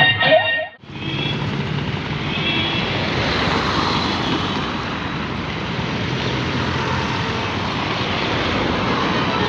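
Music cuts off under a second in, giving way to the steady engine and road noise of the Ashok Leyland sleeper bus on the move.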